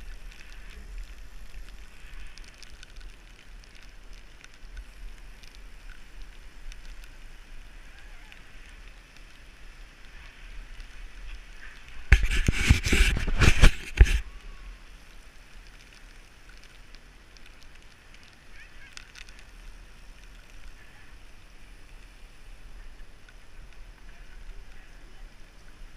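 Gloved hand wiping rain off the action camera's lens, a loud rough rubbing against the housing for about two seconds near the middle. Around it, a steady hiss of bicycle tyres on a wet road and wind.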